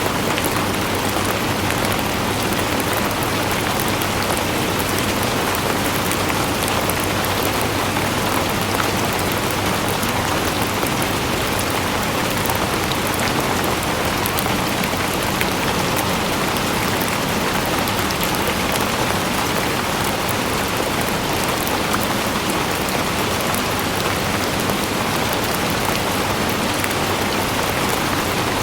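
Steady rain falling on a surface, an even hiss with fine drop ticks through it.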